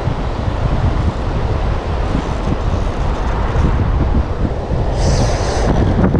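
Wind buffeting the microphone over the steady rush of river water, with a short hiss about five seconds in.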